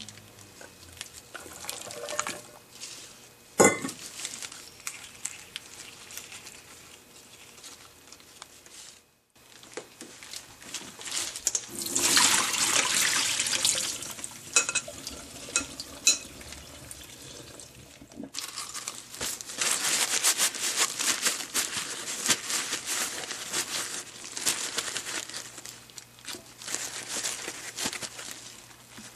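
Water running and splashing in a kitchen sink, in spells that swell and fade, with a single sharp knock a few seconds in.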